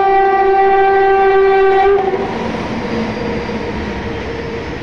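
Freight train locomotive sounding its horn in one long blast that cuts off about two seconds in, followed by the steady noise of loaded open wagons rolling past on the track.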